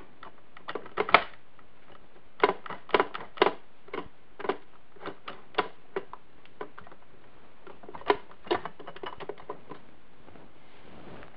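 Steel transmission gears clinking and clacking as they are worked onto a splined shaft in a 1960 Wheel Horse three-piece transmission: irregular sharp metallic clicks in short clusters, dying away near the end.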